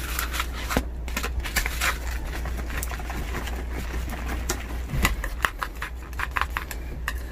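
Chopsticks stirring sticky natto, with quick irregular clicks as they knock against the foam natto pack and then against a stainless steel mixing bowl.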